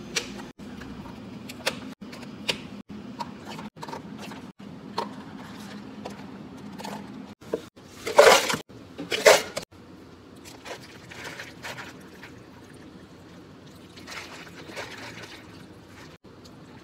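Iced drinks being made by hand. Plastic cups and lids are set down and clicked on the counter, then clear plastic takeaway cups are pulled apart from a stack in two loud crinkling rustles. Later, water is poured from a pitcher over ice in the cups.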